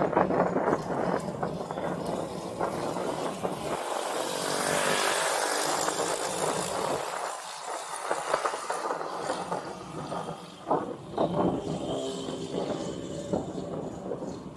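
Road and traffic noise heard from a moving bicycle, with wind on the microphone; the noise swells for a couple of seconds near the middle as traffic goes by.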